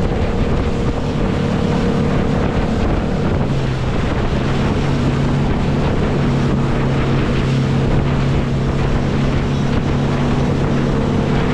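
Motorboat running at speed on open sea: a steady engine note that drops slightly a few seconds in, under rushing water and spray and heavy wind buffeting on the microphone.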